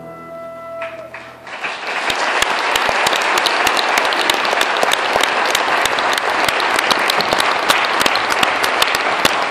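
The last held notes of the music die away, and about a second and a half in a large audience breaks into loud, sustained applause, dense clapping that continues without letting up.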